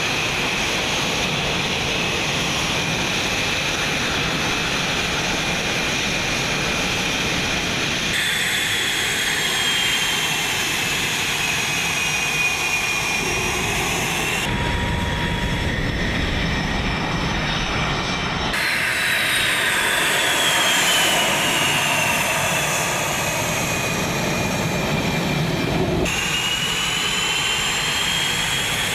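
Fighter jet engines running at taxi power: a steady roar under a high turbine whine that slides slowly up and down in pitch. The sound changes abruptly several times as the shots change.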